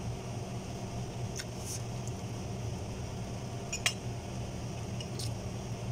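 A metal fork clinking lightly a few times against a plate as food is taken and eaten, the loudest clink just under four seconds in, over a steady low room hum.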